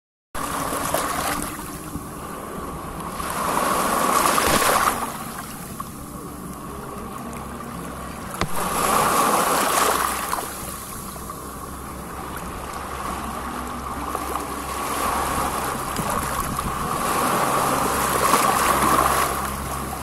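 Small sea waves washing in and breaking at the water's edge, close to the microphone, rising to three louder rushes of surf. A low steady hum runs underneath.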